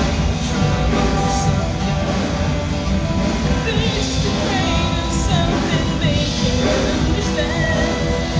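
Loud music with a singing voice over a dense low backing.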